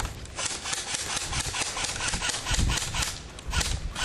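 Quick running footsteps crunching through dry leaves and undergrowth, about four or five steps a second, with clothing and gear rustling and low bumps of wind or handling on the microphone.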